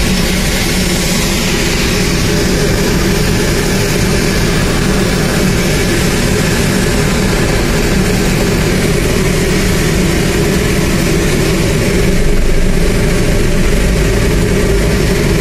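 Loud, steady engine noise at a Boeing 737-800's pushback: a low hum with steady tones and a hiss over it, swelling slightly near the end.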